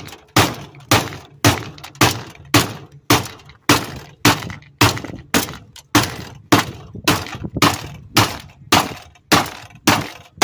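Steady, evenly paced hammer blows, about two a second, knocking at the pump motor and its plastic housing on a scrapped appliance to break the motor free.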